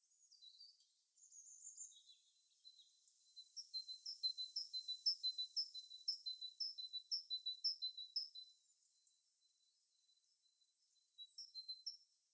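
Wild songbird calling: a few high chirps, then a fast, even run of about a dozen repeated high notes, and two more notes near the end.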